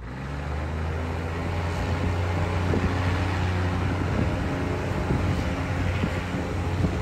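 Diesel train's engine running as the train pulls away from a station, heard from on board. It grows louder over the first two seconds, then holds steady, with a few knocks.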